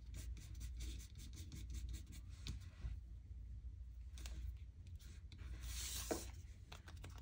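Fingers pressing and rubbing a freshly glued paper piece flat onto a playing card, smoothing from the middle out: soft paper rubbing and rustling with small scratchy ticks, a longer rub about six seconds in.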